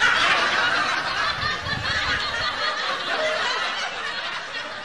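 Loud laughter that starts suddenly and tails off a little toward the end, as a prank victim takes the bait money.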